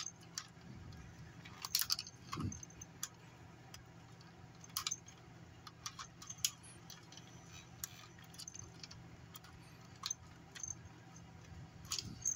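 Faint, irregular small clicks and light metallic jingles as a thin screwdriver prods the motor gear inside a 1999 Hasbro Furby and the little bells on its collar shake. The gear is jammed, and it is being worked by hand to get the motor to turn over.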